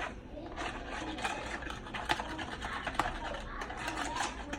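A spoon or whisk stirring barbecue sauce in a bowl: a fast, uneven run of clicks and scrapes against the bowl.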